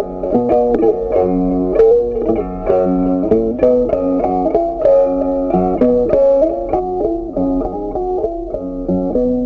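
Instrumental background music: a plucked guitar picking out a melody, note by note.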